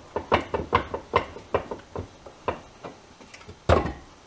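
A run of metal knocks and clunks, about two or three a second and fading, then one louder clunk near the end, as a Reliant Robin rear drive shaft assembly, freshly pulled out in one piece with its hub, bearing and brake drum, and the axle casing in the bench vise are handled.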